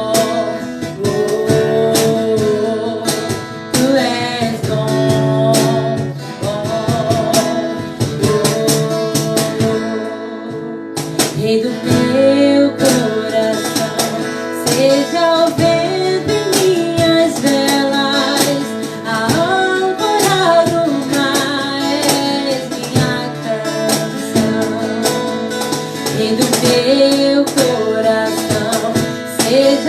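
Acoustic guitar strumming steadily under a woman singing a worship song.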